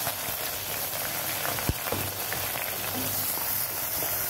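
Sliced onions sizzling steadily in hot oil in a non-stick kadai, with one light knock partway through.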